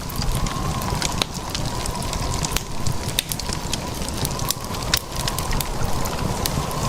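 Wind buffeting the microphone with a low rumble, with many sharp crackling clicks throughout and a faint steady high tone underneath.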